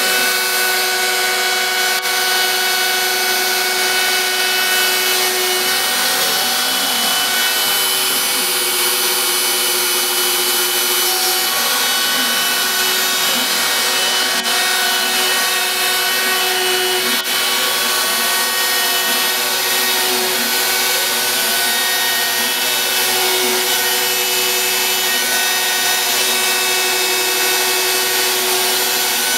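Home-built CNC router cutting MDF: the router spindle runs at a steady, loud pitch while the bit chews through the board. From about six seconds in, a fainter whine rises and falls in repeated arcs, typical of the stepper motors driving the gantry around curves.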